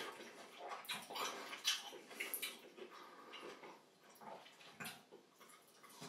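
Newfoundland dog eating from a plate: irregular wet chewing and slurping, with a few sharp clicks of a fork and knife on the plate.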